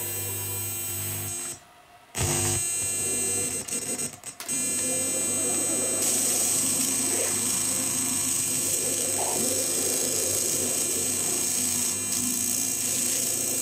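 Circuit-bent VHS video recorder's audio output: a harsh, steady electronic drone of hum and layered tones over hiss. It cuts out abruptly for about half a second near the two-second mark and stutters around four seconds in. About halfway through it turns hissier.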